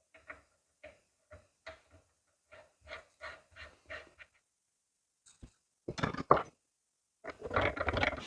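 Rhythmic panting breaths, about two a second, then a pause and a few louder clattering, handling sounds near the end.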